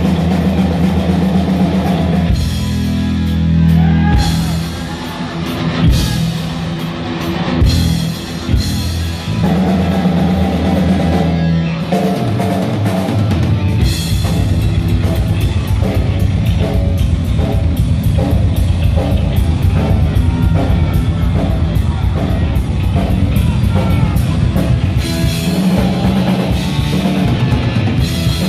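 Heavy metal band playing live: distorted electric guitar, bass guitar and drum kit at full volume. About twelve seconds in, the drums take up a fast, steady beat.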